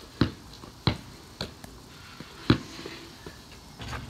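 A basketball bouncing hard on a concrete driveway, four main bounces spaced irregularly over the first two and a half seconds, the last the loudest. Near the end comes a rougher clatter as the ball is dunked one-handed through the portable hoop.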